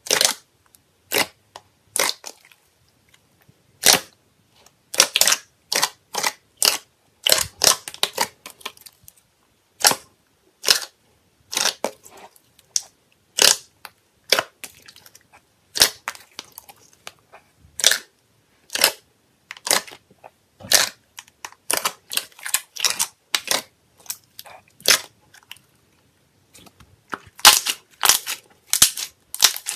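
Hands squeezing and pressing a large tub of glossy slime, making sharp pops and clicks as trapped air bursts. The pops come irregularly, some singly and some in quick runs, with a dense run near the end.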